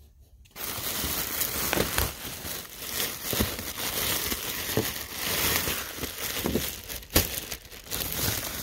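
Black plastic sheeting crinkling and rustling as it is handled, starting about half a second in, with many small crackles and one sharp crack near the end.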